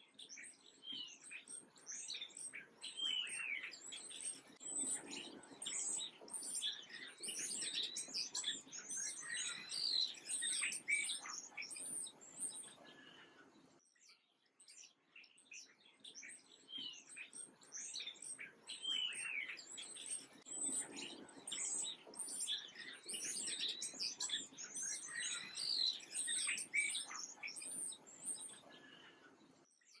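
A dense chorus of small songbirds chirping and twittering, many short calls overlapping. The same roughly 14-second passage plays twice, fading low between the two.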